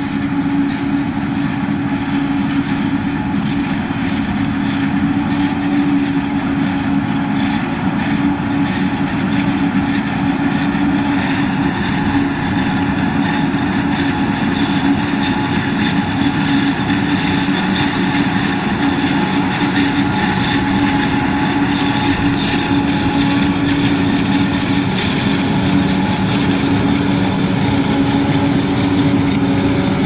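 John Deere 7750i self-propelled forage harvester running under load, chopping maize and blowing it into a trailer, with a John Deere tractor running alongside: a steady, even drone with a constant hum.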